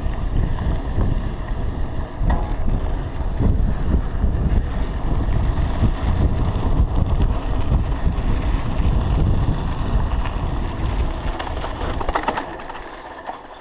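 Wind buffeting the action camera's microphone as a mountain bike rolls fast down a dirt trail, its tyres crunching over the dirt and gravel. The noise dies down near the end.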